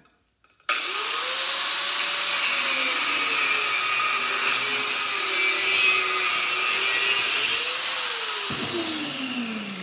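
Small corded angle grinder cutting into a microwave magnetron held in a vise. It comes in suddenly about a second in, its whine sagging and recovering as the disc bears on the metal, then winds down with a falling pitch near the end as it is switched off.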